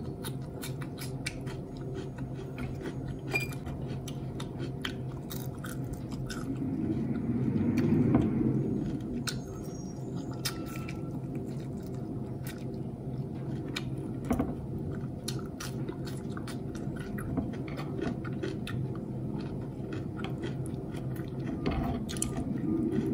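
Chewing and small mouth clicks and smacks of someone eating fried rice and fried egg by hand, over a steady low hum. A low rumble swells and fades about eight seconds in, and again near the end.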